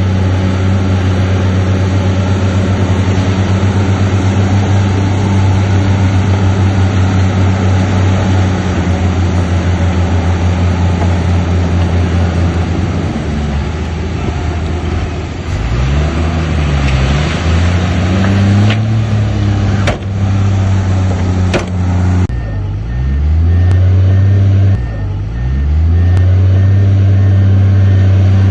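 Heavy diesel earthmoving machinery running steadily. Its engine note sags and recovers a few times in the second half, as under changing load, and there are a few sharp knocks. A faint repeated beep sounds near the end.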